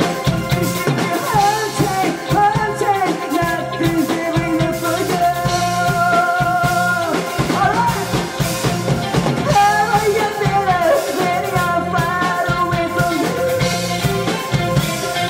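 Live rock band playing: a male voice singing over electric guitars, bass and drum kit with a steady beat.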